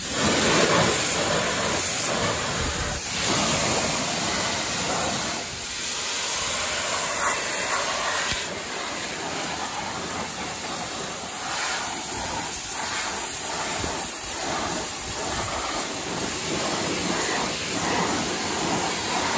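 Pressure washer jet rinsing wheel cleaner off a car's alloy wheel and tyre: a steady, loud hiss of spraying water that swells and dips slightly as the spray moves over the rim.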